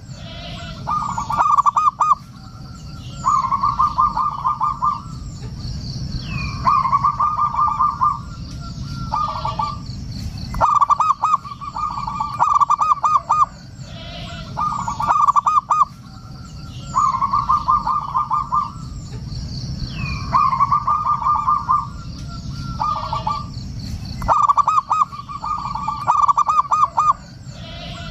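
Zebra dove (perkutut) song: repeated phrases of rapid, pulsed cooing notes, each phrase about a second long, coming in runs of two or three with short gaps. Over a steady low background noise.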